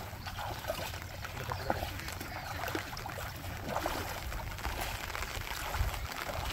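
Water splashing and sloshing as people wade and reach through shallow floodwater, in short irregular splashes.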